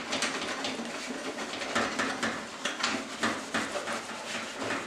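Cloth wiping the front panel of a computer cabinet, a run of irregular rubbing strokes, a few a second.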